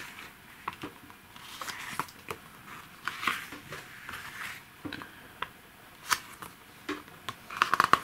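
Pages of a mediabook's bound booklet being turned by hand: soft paper swishes and small flicks of the page edges, ending in a quick run of flicks as several pages are leafed through fast near the end.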